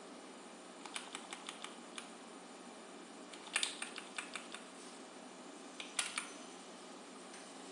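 Computer keyboard keys pressed in three short runs of sharp clicks, about a second in, between three and a half and four and a half seconds, and at six seconds, as the cursor is stepped through a BIOS menu. A steady hiss runs underneath.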